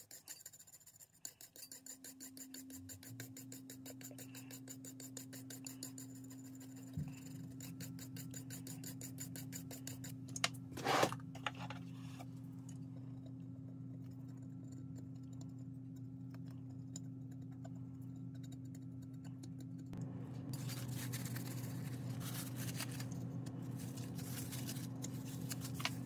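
Toothbrush bristles and a cotton swab scrubbing a bare circuit board, a faint, dense scratching that grows louder near the end, over a steady low electrical hum that sets in about two seconds in.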